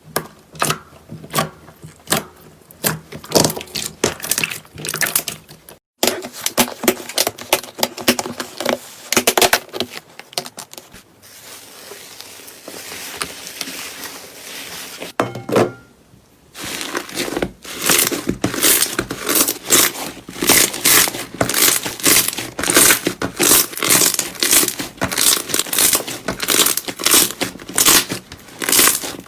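Slime being squeezed and pressed by hand, giving rapid sticky crackling and popping clicks. A quieter, softer stretch falls in the middle, then the crackling turns dense and fast.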